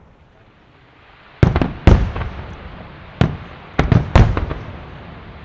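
A fireworks display: after a short lull, about half a dozen loud bangs of bursting fireworks come in quick, uneven succession, the first about a second and a half in, each trailing off into a rolling echo.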